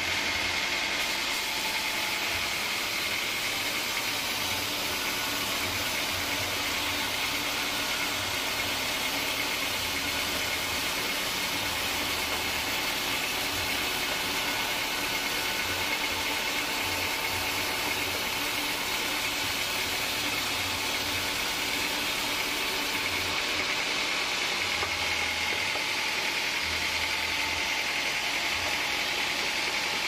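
Band sawmill running and sawing a log lengthwise into a board: a steady whirring hiss with a constant high whine, unbroken throughout.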